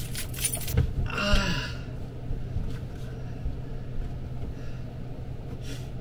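Steady low hum of the camper van's ventilation fan, with soft knocks and rustling as a person shifts and settles back on a cushioned bench, and a brief grunt-like vocal sound about a second in.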